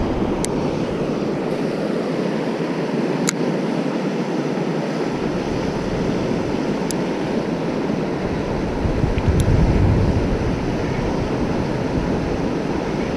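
Steady rush of river water spilling over a low-head dam, with wind gusting on the microphone as a low rumble that drops away for a few seconds and swells again near ten seconds in. A few faint, sharp clicks.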